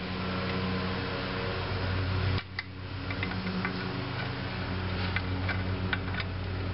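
Small metallic clicks and ticks of needle-nose pliers working a lower return spring on a drum brake's shoes, over a steady low hum. The clicks come mostly in the second half.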